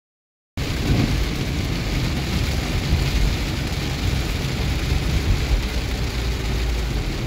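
Heavy rain beating on a moving car, heard from inside the cabin, over a deep steady rumble of the car and road. It cuts in abruptly about half a second in, after dead silence.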